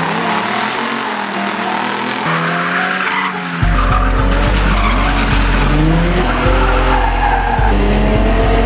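Drift car engines revving up and down, with tyres skidding and squealing. A heavy low drone comes in suddenly about three and a half seconds in and holds.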